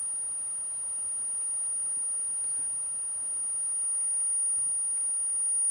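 Steady high-pitched 10 kHz sine test tone played through a Pye Black Box germanium transistor amplifier. It grows slowly louder as the input signal is turned up.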